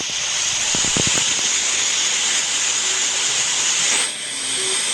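A loud, steady hiss, with a few low thumps about a second in; the hiss thins out near the end.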